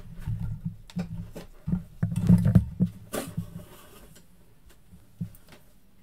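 Handling noise: a run of knocks, taps and rustles with dull thumps over the first three seconds or so, then only a couple of faint ticks.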